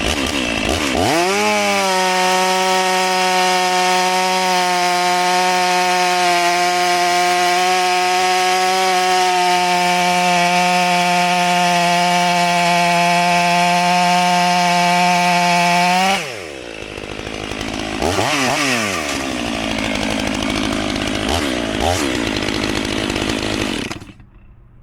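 Stihl MS 500i fuel-injected two-stroke chainsaw bucking a log: it climbs to high revs about a second in and holds there steadily for some 15 seconds. The revs then drop, rise and fall twice more in short blips, and the saw goes quiet near the end.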